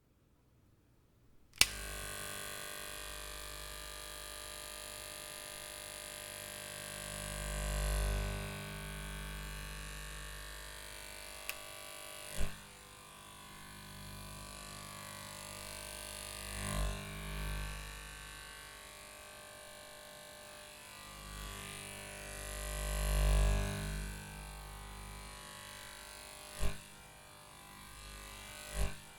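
A steady electrical hum, like a small motor or appliance, switched on with a sharp click about a second and a half in. It swells louder twice and is punctuated by several sharp clicks.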